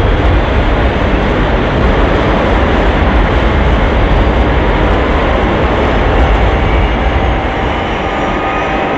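Thunderbird 2's vertical lift jets firing as it hovers down to land: a loud, steady rushing jet noise with a heavy low rumble, easing a little near the end.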